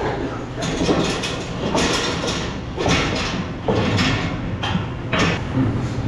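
A crowded pen of market hogs being herded, with short noisy squeals and grunts about once a second over a steady low hum.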